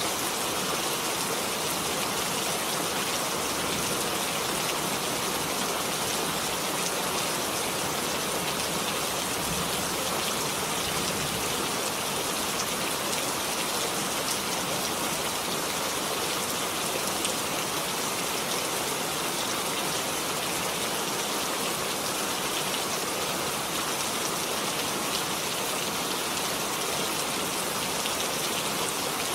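Steady rain falling, a dense even hiss of drops with fine pattering throughout.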